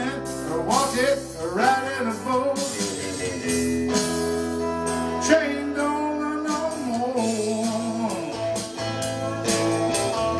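Live blues-rock song: a man singing and playing a Telecaster-style electric guitar over a prerecorded backing track with a steady beat.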